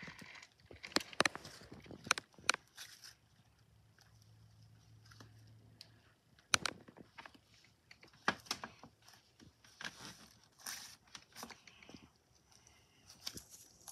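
Thick purple slime being squeezed, folded and stretched by hand, making irregular sticky clicks, pops and squelches, with a quieter spell a few seconds in.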